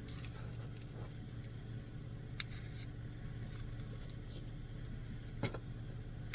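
A steady low machine hum runs throughout, with a few light sharp clicks about two and a half, five and a half and six seconds in; the one at five and a half seconds is the loudest.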